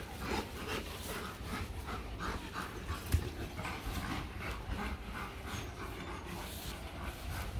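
Rottweiler panting in quick, even breaths while mounting during a breeding, with one sharp knock about three seconds in.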